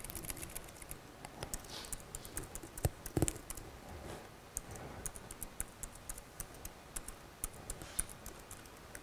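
Laptop keyboard typing: irregular key clicks, faint, with one heavier knock about three seconds in.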